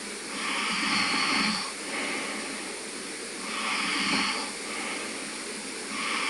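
A man snoring in his sleep: slow, noisy breaths repeating about every three seconds, two full breaths with a third starting near the end.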